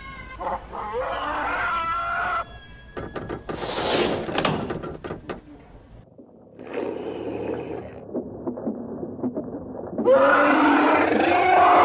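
Film-style dinosaur sound effects: a series of growls and snarls, then a loud roar in the last two seconds.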